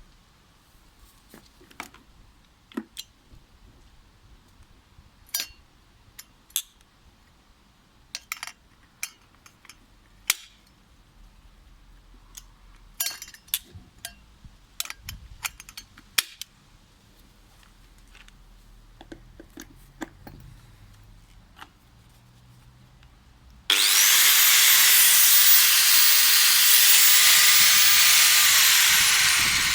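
A series of sharp clicks and knocks as the Bosch GWX 750-125 angle grinder is handled. About 24 seconds in, its 750 W motor switches on, spins up and runs free at full speed with a loud, steady whine, then begins to wind down at the very end as it is switched off.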